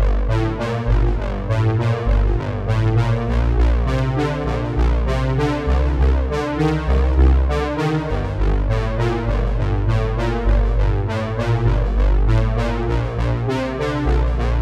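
Synthesizer-led dance music with a heavy bass line and a steady beat, played loud through a disco sound system.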